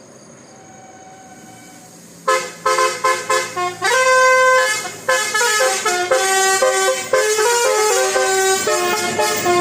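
Bus telolet horn, a set of air horns sounded in sequence, playing a jaunty tune of short stabs and held notes at several pitches, starting abruptly about two seconds in. Before it, only a faint low hum.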